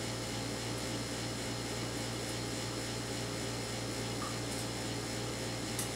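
Steady low hum and hiss of a small kitchen's background, with a few faint clicks spread through it and one slightly stronger click near the end.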